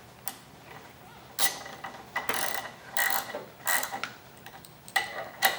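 Ratcheting socket wrench clicking in short strokes, about one a second, as the 14mm crank arm nut of an exercise bike is tightened down.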